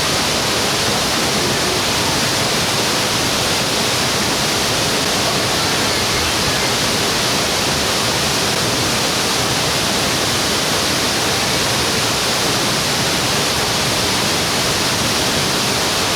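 Loud, steady rushing roar of a large waterfall at close range, unbroken and even.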